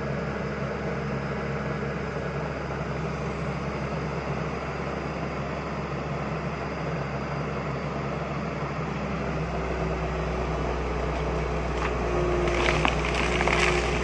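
Hydraulic excavator's diesel engine running steadily, its note growing heavier about nine seconds in as the arm works under load, with a steady higher whine joining it. Near the end, sharp knocks and clatter sound over the engine.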